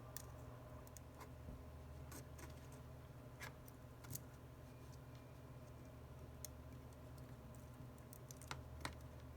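Faint, scattered small clicks and taps of tools and parts being handled while reconnecting a smartphone's display flex cables, a few seconds apart, over a steady low hum.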